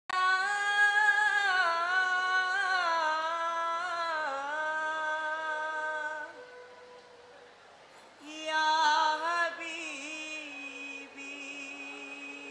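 A single singer sings the slow opening line of a kolkali song in long, ornamented held notes, with no stick strikes. The voice breaks off about six seconds in, comes back about two seconds later and ends on a long held note.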